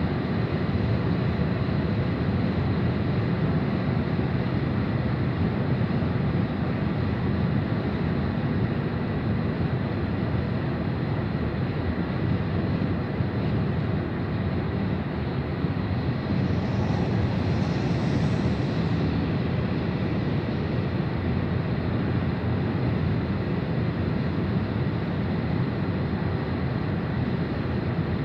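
A car driving at highway speed: steady road and engine rumble. A brief hiss rises about sixteen seconds in and fades about three seconds later.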